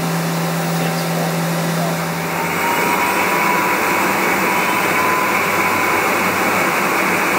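Doosan Puma V550 CNC vertical turning center running, its 18-inch chuck spinning a large disc-shaped workpiece, with a steady rushing machine noise. About two and a half seconds in, a low hum drops away, the rushing grows louder, and a faint whine rises slightly.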